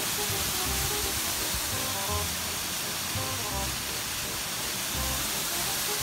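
Small waterfall splashing down a rock face into a shallow stony pool, a steady rush of water, with background music of short notes and soft low beats mixed underneath.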